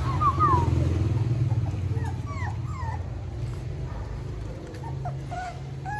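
Puppies whimpering and yipping in short, high squeaks that come in small clusters near the start, around two seconds in, and near the end, over a steady low hum.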